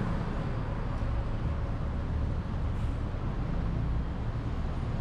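Steady low rumble of road traffic and engines, even throughout with no distinct events.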